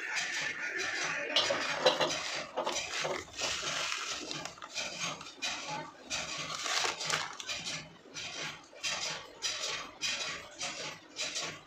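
Utensils and hands working paratha dough on a marble rolling board: a quick string of short clinks, taps and scrapes.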